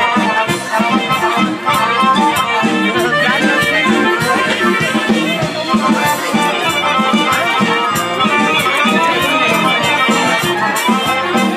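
Traditional folk dance music for a Balkan oro circle dance, with a steady, even beat.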